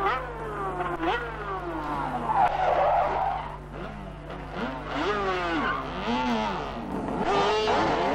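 Racing sidecar outfits' engines coming through a bend one after another at high revs. Their pitch falls in steps, dropping and jumping back up as they shift down, then climbs again as they pull away, with several engines overlapping.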